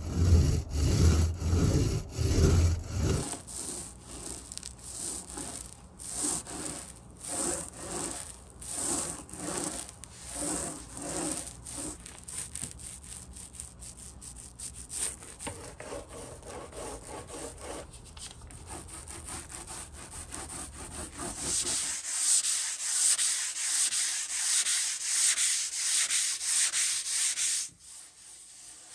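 Hand sanding with a sanding sponge on a primed panel: repeated back-and-forth scrubbing strokes. The strokes are brightest and hissiest in the last few seconds and stop abruptly near the end.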